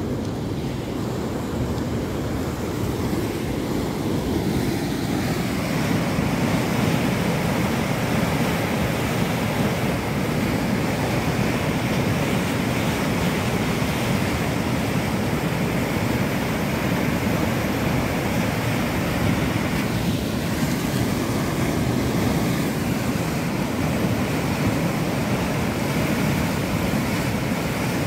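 Steady rush of turbulent water at a lift irrigation outfall, swelling a little over the first several seconds and then holding.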